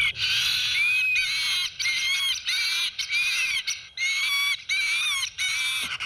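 Recorded bird distress calls broadcast from the loudspeaker of an 'Ahuyentador Digital' bird-scaring unit, repeated about twice a second as short harsh cries. The panic cries of problem species are played to drive birds away from the airfield.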